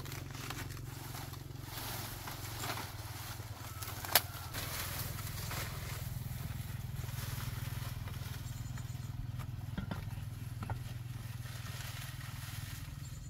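Dry palm fronds rustling and crackling as they are gathered and dragged over dry straw, with one sharp snap about four seconds in, over a steady low drone.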